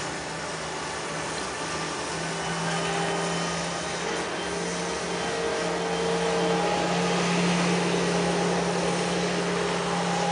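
Steady motor hum: a constant low tone with fainter higher tones over an even hiss, growing a little louder about six seconds in.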